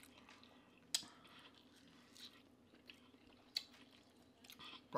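Quiet, close-miked chewing of food, with a few sharp mouth clicks, the loudest about a second in, over a faint steady low hum.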